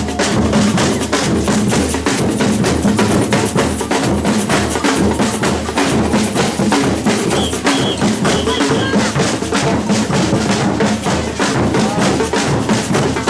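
Batucada percussion ensemble playing a fast, dense samba rhythm: deep surdo bass drums pulsing steadily under rapid snare and small-percussion strokes.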